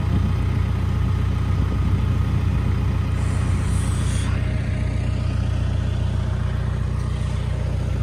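Lull telehandler's diesel engine idling steadily while a truss is strapped to its forks.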